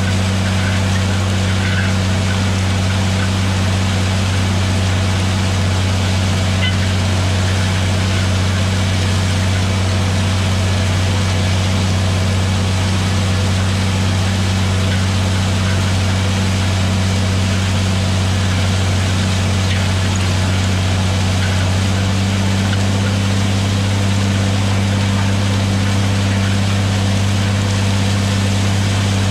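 A John Deere 4555 tractor's six-cylinder diesel engine running steadily under load as it pulls a disk harrow through corn stalks, holding one constant pitch.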